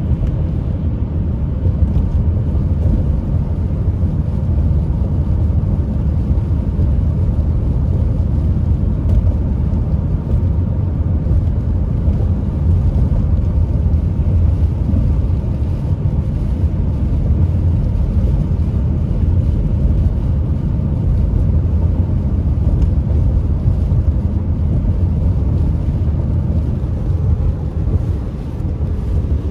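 A car driving on a wet road, heard from inside the cabin: a steady low rumble of tyres and engine.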